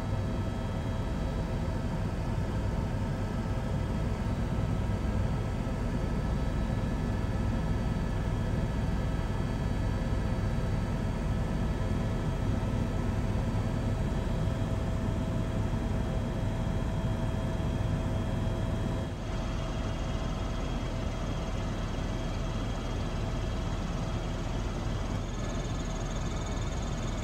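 Helicopter cabin noise in flight: a steady, heavy rumble with several high, steady whining tones over it. A further, higher whine comes in near the end.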